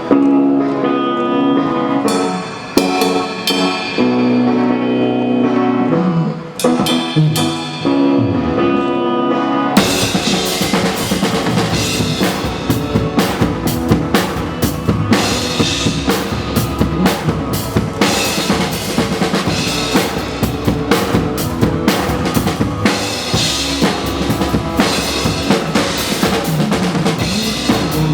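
Pop-song backing track playing its intro, then about ten seconds in a drum kit comes in with the full band, kick, snare and cymbals played in a steady groove along with the track.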